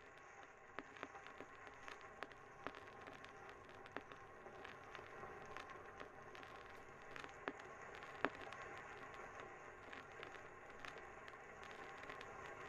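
Faint crackling: scattered sharp clicks, a few of them louder, over a steady low hiss.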